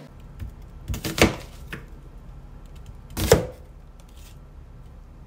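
Wide-bladed kitchen knife slicing through an onion and knocking onto a cutting board: a few separate chops, two close together about a second in and the loudest a little past three seconds.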